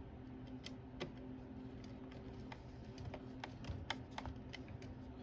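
Faint, irregular light clicks and taps of small screws and tools being handled against the aluminum window frame, over a steady low hum.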